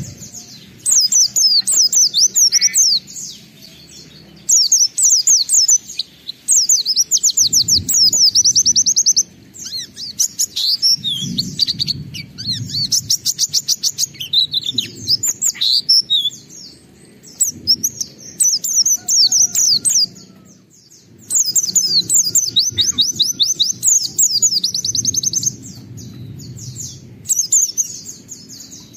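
Pleci (white-eye, Zosterops) singing vigorously in fast, high trilled and chirping phrases a few seconds long, with short pauses between them, over a faint low background hum.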